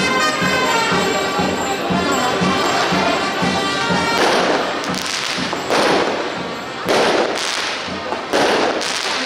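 Festival band music with a steady drum beat. From about four seconds in, firecrackers go off in a run of sharp, crackling blasts, each under a second long, that come over the music.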